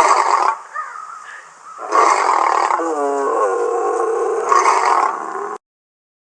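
Tiger roaring: a short loud roar, a quieter growl for about a second, then one long roar of about three and a half seconds that cuts off abruptly.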